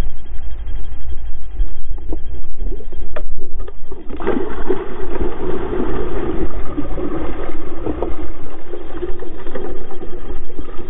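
Water splashing and sloshing as a salmon is unhooked and released at the surface, over a steady low rumble, the splashing louder from about four seconds in.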